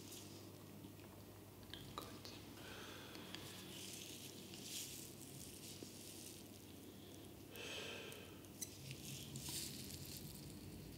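Faint soft rustling and small clicks of close-up hand handling, over a low steady hum, with a slightly louder rustle about three-quarters of the way through.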